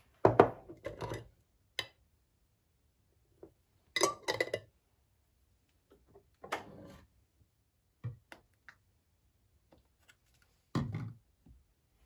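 Plastic toiletry jars and bottles being picked up and set down on a bathroom counter and cabinet shelf: about half a dozen short bursts of knocks and clatter a few seconds apart.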